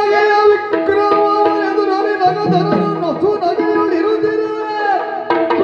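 Yakshagana music: a sung melodic line with gliding pitch over a steady drone, with hand-drum strokes.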